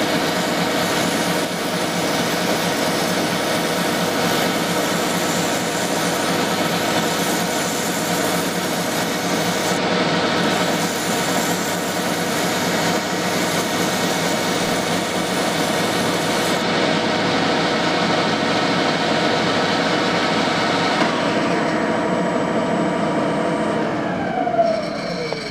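Metal lathe running while a strip of emery cloth is held against the spinning Morse taper shank, a rubbing hiss over the steady hum and whine of the motor and drive. The hiss stops about two-thirds of the way through; near the end the lathe is switched off and its whine falls in pitch as it spins down.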